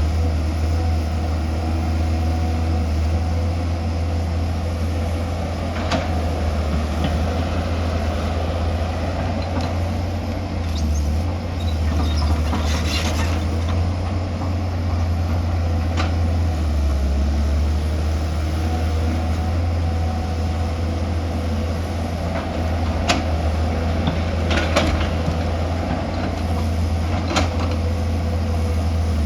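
Excavator's diesel engine running steadily under load with a deep rumble, and a few sharp knocks scattered through, the kind of clank a digging bucket makes on rock and soil.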